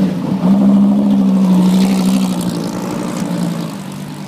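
SRT Viper GTS-R race car's V10 engine running at low, steady revs as the car rolls by. The steady drone is loudest about half a second in, then fades as the car pulls away.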